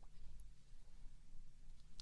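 A few faint wet mouth clicks close to a binaural microphone, over a low steady hum.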